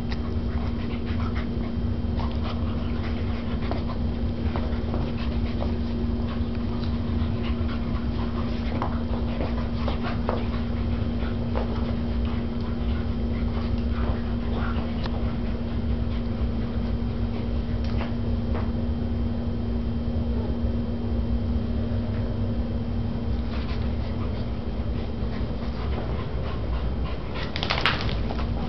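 An Afghan hound and a whippet play-wrestling: short scattered dog sounds throughout, with one louder, higher sound near the end. A steady low hum runs underneath.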